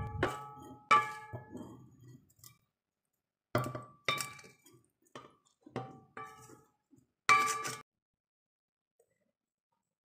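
Spatula knocking and scraping cooked food out of a metal wok onto a ceramic plate: a series of sharp clinks, each ringing briefly, stopping about eight seconds in.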